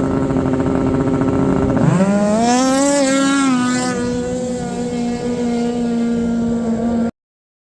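Racing snowmobile engine running at a steady pitch; about two seconds in its revs dip, then climb sharply and settle to a steady high note. The sound cuts off abruptly near the end.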